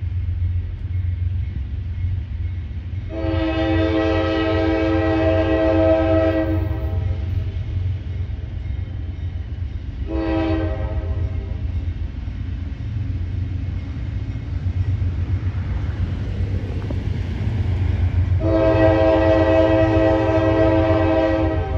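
A freight locomotive's air horn sounding for a grade crossing as the train approaches. There is a long blast, a short one a few seconds later, then another long blast near the end, all over the steady low rumble of the oncoming train.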